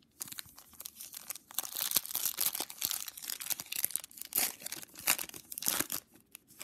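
Foil wrapper of a trading-card pack crinkling and tearing as it is ripped open by hand; the crinkling stops near the end.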